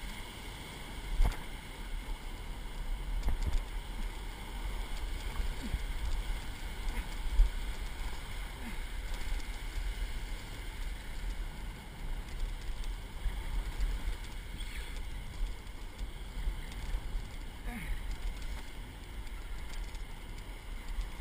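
Ocean surf washing and breaking in the shallows, under a steady low rumble of wind on the microphone. A couple of sharp knocks stand out, about a second in and about seven seconds in.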